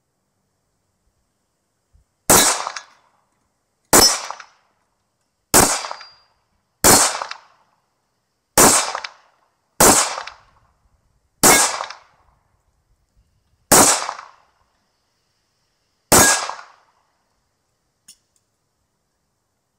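CZ75 Shadow SP-01 9mm pistol firing nine single shots at an uneven pace, about one to two and a half seconds apart, each shot followed by a short echo. A faint click near the end.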